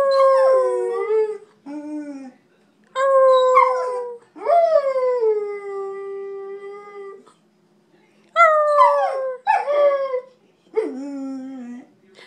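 Pet dog howling: a run of about seven drawn-out howls with short breaks between them. The longest, near the middle, lasts about three seconds, sliding down in pitch and then holding. The last few are shorter and drop in pitch.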